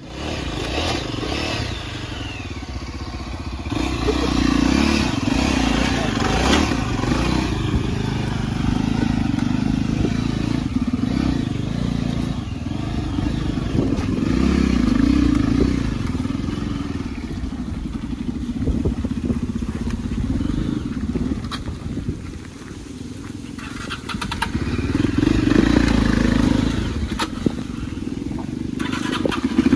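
Yezdi Adventure motorcycle engine pulling over rough off-road ground, its revs rising and falling again and again with the throttle. A few sharp knocks and rattles come through.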